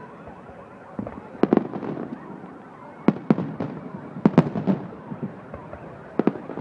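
Aerial firework shells bursting in the sky: sharp bangs in quick groups of two or three, about every second and a half.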